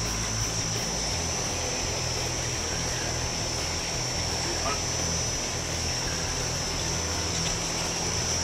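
Steady hiss and low hum picked up by a camera submerged in a fish tank, with a constant high whine over it.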